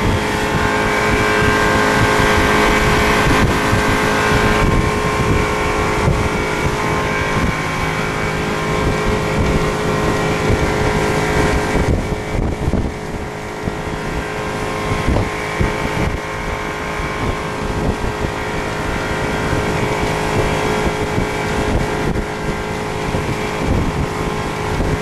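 Boat engine running steadily, with wind buffeting the microphone.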